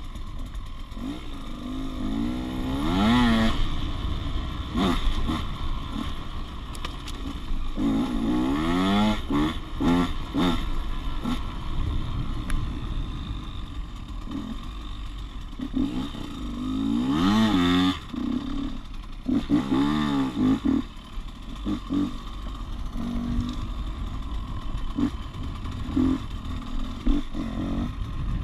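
Motocross dirt bike engine heard from on board, revving up and dropping off again and again as the rider accelerates and shuts off around the dirt track, with a steady rush and some clatter between the revs.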